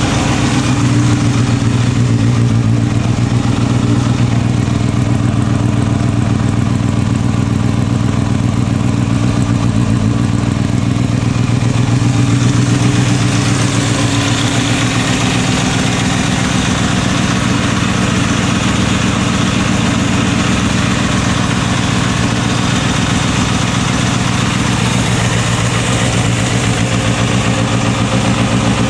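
Kawasaki Balius 250 cc inline-four motorcycle engine idling steadily through an aftermarket OVER Racing silencer.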